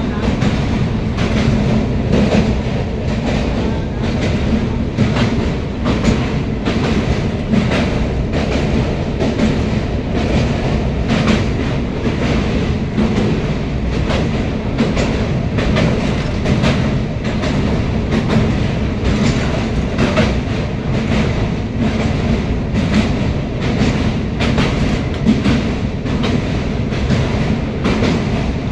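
Train running over a steel truss rail bridge, heard from inside the coach: a steady heavy wheel rumble with repeated clacks of the wheels over the rails.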